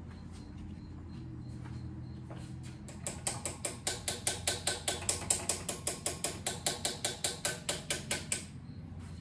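Evinrude Big Twin 40 two-stroke outboard turned over on its electric starter: a fast, even clicking rhythm of about five strokes a second that starts about three seconds in and stops suddenly after about five seconds, without the engine firing. The electric choke is not working.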